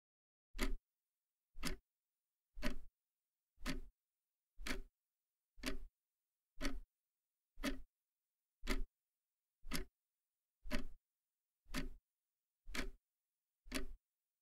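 Clock ticking sound effect, one sharp tick about every second, with dead silence between the ticks.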